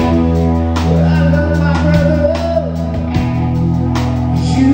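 Live band playing a slow rock ballad: a Gibson Les Paul electric guitar over bass and drums, with a wavering melody line about a second in.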